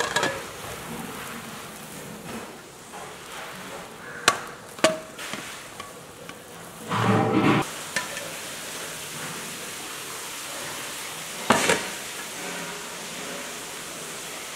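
A plate and a nonstick pan knocking together as the pan is turned out onto the plate: a few scattered sharp clinks, with a louder clatter about halfway through and another knock later, over a faint steady hiss.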